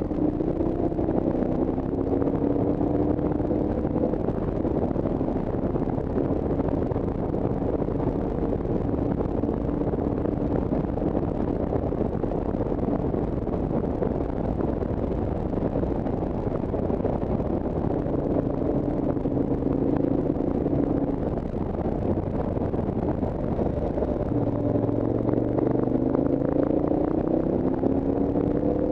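A vehicle engine pulling under load beneath a steady rush of wind and road noise. Its note rises slowly in pitch several times as it accelerates, fading into the rush in between.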